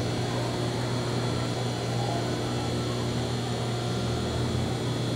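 A steady low mechanical hum with no other events.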